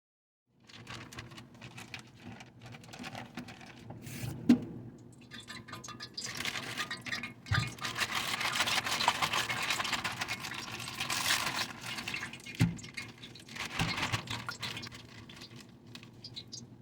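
Chicken frying in hot oil, a dense sizzle and crackle that swells louder in the middle, with a clink and a few knocks from the pan or a utensil.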